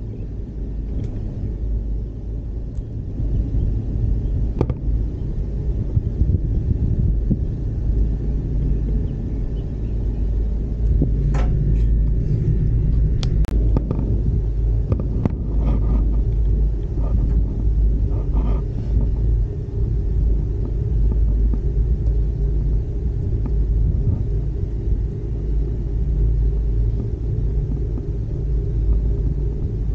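Steady low rumble from inside a moving ropeway gondola cabin riding the cable, with a handful of faint clicks and knocks in the middle.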